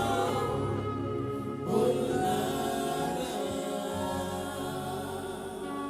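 Live gospel worship music: voices singing held notes with musical accompaniment, a new sung phrase coming in a little under two seconds in.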